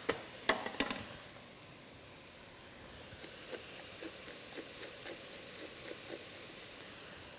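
Vegetables sizzling steadily in a stainless steel saucepan. A wooden spoon stirs and scrapes them with a few sharp knocks in the first second. Later a salt mill is twisted over the pot, giving faint clicks about twice a second.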